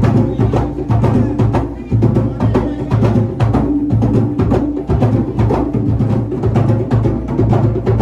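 Music with drums and a sharp, clicking wood-block-like percussion over a heavy bass beat, in a steady driving rhythm.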